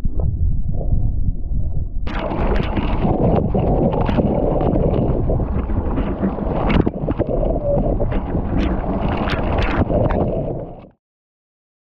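Wind rumbling on an action camera's microphone and water spray from a kiteboard skimming the water, splashing over the camera. About two seconds in the water noise gets louder and brighter, with many sharp splashes, and it cuts off suddenly near the end.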